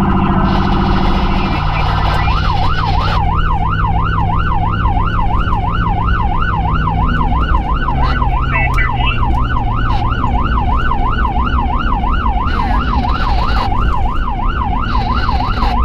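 Electronic emergency-vehicle siren on a responding vehicle, heard from inside the cabin: a very fast warble for the first two seconds, then a yelp rising and falling about three times a second. A low steady tone runs under it and stops about a second and a half in.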